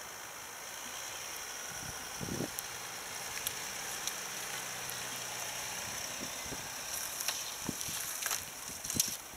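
Audi A6 Allroad's 3.0 TDI V6 diesel running at low revs as the car creeps through snow past the microphone, with a faint engine hum midway. Sharp crunching and crackling of snow and dry stalks near the end.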